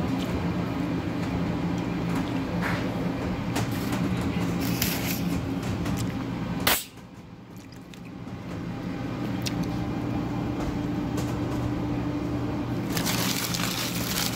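Steady low machinery hum of restaurant back-room equipment, with scattered small handling clicks. About halfway through comes a sharp click, after which the hum drops away briefly and returns. Near the end, a plastic bag crinkles as it is handled.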